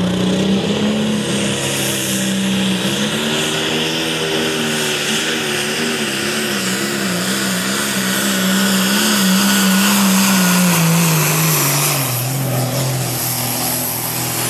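Diesel pulling tractor's engine running hard under load as it drags a weight-transfer sled down the track. The engine note wavers, then drops in pitch from about ten seconds in, as the engine lugs down under the sled's growing weight.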